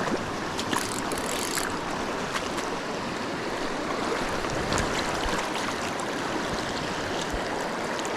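Creek water flowing steadily, with a few faint light ticks over it.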